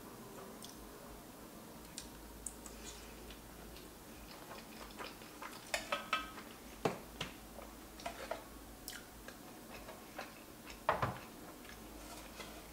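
Close-miked eating: quiet chewing of pasta with scattered light clicks of a metal utensil against an enamelled cast-iron pan. A louder clink comes about eleven seconds in.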